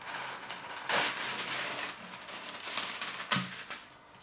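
Hands handling packaging and kitchen things at a counter: rustling and crinkling with scattered clicks, and one sharp knock a little over three seconds in.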